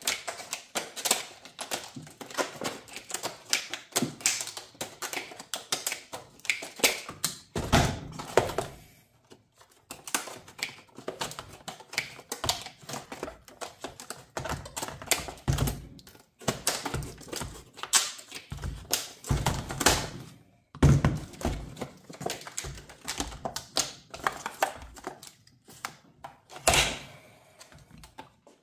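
Unboxing a Milwaukee M12 soldering iron by hand: packaging being handled and opened, giving an irregular run of clicks, taps and knocks with a few heavier thumps.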